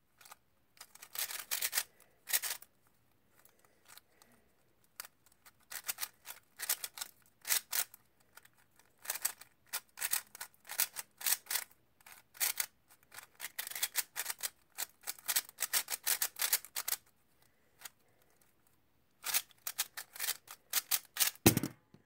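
A Jack-O-Lantern GTS 3x3 speedcube being turned fast in a timed solve: rapid bursts of plastic layer clicks broken by short pauses. Just before the end comes a single thump as both hands slap the timer pads to stop it.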